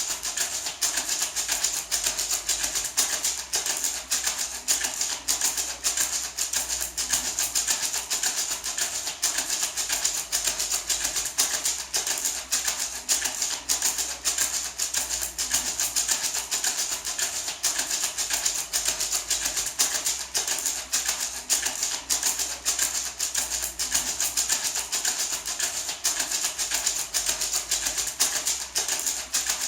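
Natural gourd maraca (a small Mexican-style shaman rattle) shaken continuously in a quick, even rhythm, its seeds rattling in a dry, hissy shake.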